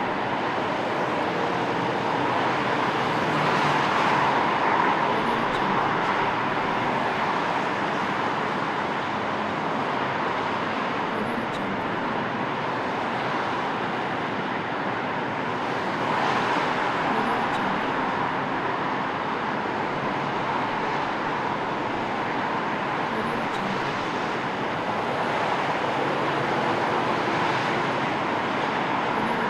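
City street traffic ambience: a steady wash of car and engine noise with vehicles swelling past every few seconds.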